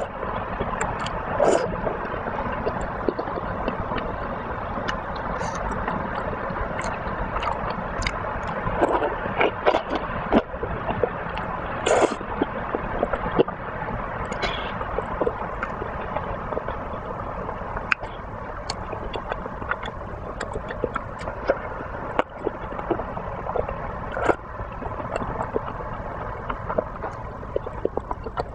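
A pot of broth bubbling at a steady boil, with scattered clicks and taps throughout.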